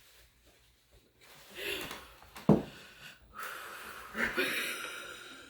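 A person breathing hard and wheezily through a mouthful of food, with one short, sharp sound about halfway through, while fighting off the urge to vomit.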